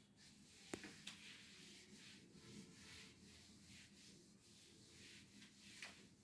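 Faint rubbing of a felt whiteboard eraser being wiped in strokes across a whiteboard, clearing off marker writing, with a sharp tap about three-quarters of a second in.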